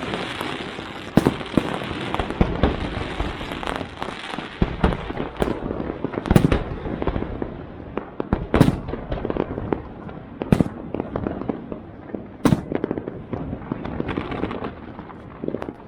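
Fireworks going off: a continuous crackling and popping, with single sharper bangs every couple of seconds, the loudest of them through the middle.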